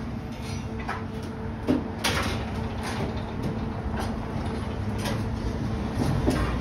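Restaurant kitchen ambience: a steady low hum with a few sharp knocks and clatters, the loudest about two seconds in.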